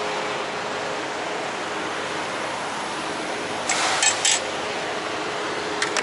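Steady running noise of a semi-truck, an even hum with faint steady engine tones. About four seconds in come three short bursts of hiss, and a brief click follows near the end.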